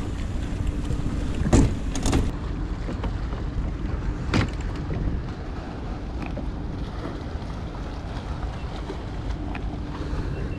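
Steady wind rumble on the microphone and water around a small open fishing boat. A few sharp knocks about a second and a half, two and four and a half seconds in come from the bow-mount trolling motor being handled against the hull.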